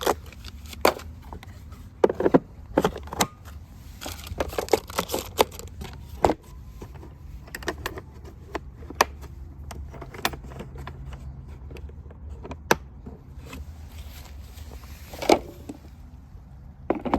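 Irregular clicks, knocks and rattles of plastic tool handling as a cordless tool battery is fitted onto a shop vac, over a low steady hum.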